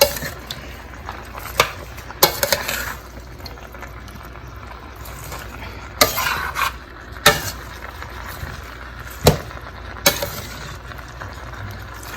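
Chicken frying in olive oil in a wok, stirred with a utensil: a steady sizzle broken by about half a dozen scrapes and clinks of the utensil against the wok.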